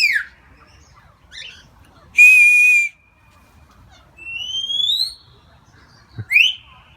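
A parrot and a girl trading whistles: a short steady whistle, then a longer whistle rising in pitch, then a quick upward whistle near the end.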